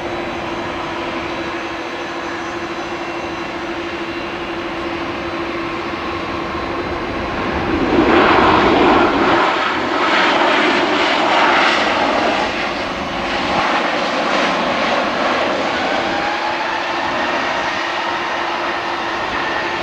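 Jet airliner engines at low taxi power: a steady whine with a fixed hum from the Airbus A319's CFM56 engines. About eight seconds in the engine noise grows louder and rougher as a second airliner taxis past, and it eases off later with a slowly rising whine.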